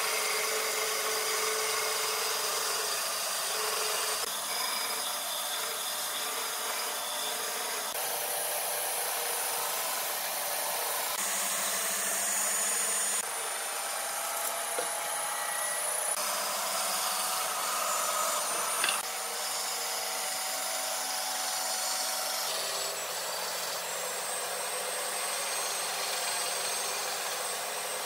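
Band saw cutting a curve through a thick wooden slab: a steady sawing noise of the blade through the wood over the running machine, with several abrupt shifts in tone.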